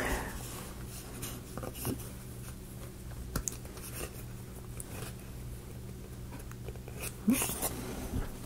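Light scattered clicks and taps of small laser-cut plywood pieces being handled and pressed into slots in a plywood disc, with a busier patch of clicks near the end, over a faint steady low hum.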